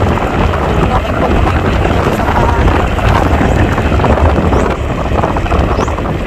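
Loud, steady wind buffeting the microphone, with the rumble of a moving vehicle underneath.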